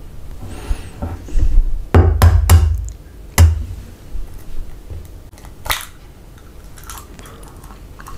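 A raw hen's egg being cracked: a few sharp knocks on the shell, the loudest about three and a half seconds in, then the shell crackling as it is pried open by hand.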